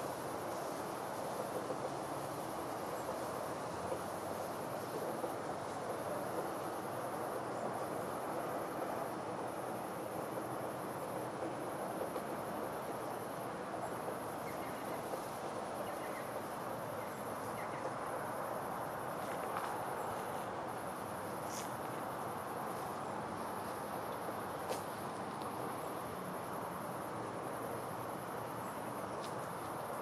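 Riverside ambience: insects trilling in a steady high-pitched drone over a steady low rush of background noise, with a few faint short chirps and ticks in the second half.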